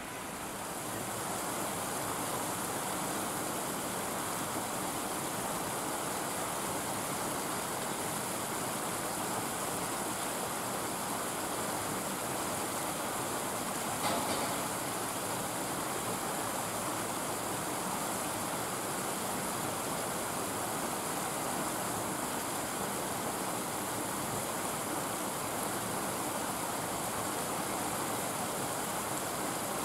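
Steady, even hiss with no distinct sounds in it, and a faint click about halfway through.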